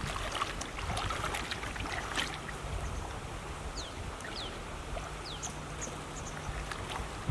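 Steady wash of outdoor water and wind noise with a low hum that comes and goes. A few short, high, falling chirps come through the middle, along with scattered light clicks.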